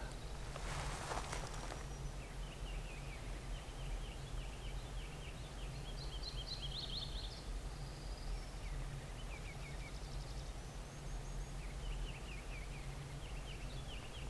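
Woodland birds singing in runs of quick, repeated high chirps over a steady low background rumble, with a short rustling burst about a second in.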